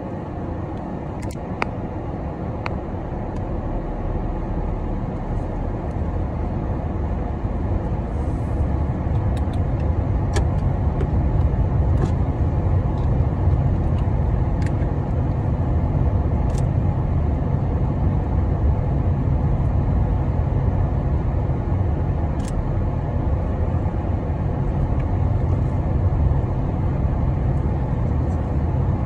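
Steady low rumble of a moving car heard from inside the cabin, engine and tyre noise together. It grows louder over the first ten seconds or so and then holds steady, with a few faint clicks.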